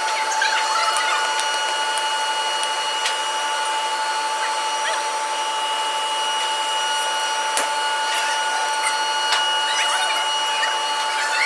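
An electric workshop machine running steadily with a high whine made of several fixed tones, with a few sharp clicks of metal work.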